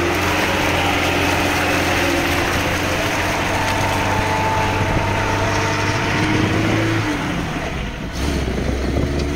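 Lada Niva's engine running under load as the car drives over a muddy track, with a steady rush of tyre and wind noise. The engine note eases off about seven seconds in, then picks up again.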